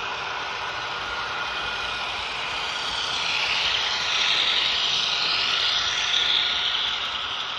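HO-scale model diesel passenger train (Walthers Proto E9 A-B set) running along the track: a steady whir of motor and wheels on rail. It swells louder from about three seconds in as the locomotive and cars pass close by, then eases off near the end.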